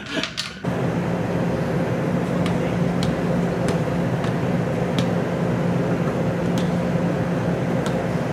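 Steady machinery hum of a ship, with a strong low drone, starting abruptly less than a second in, with a few faint sharp clicks over it.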